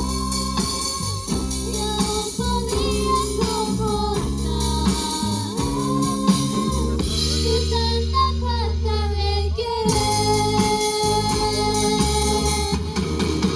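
A song: a lead voice sings over a band with bass and percussion. The high cymbal and percussion sound drops away for a few seconds past the middle, then comes back.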